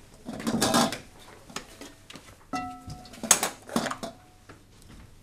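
Plastic draw balls clattering in a glass bowl as a hand rummages and pulls one out, followed by the handling of the balls. The glass rings briefly a few times, most clearly about two and a half seconds in.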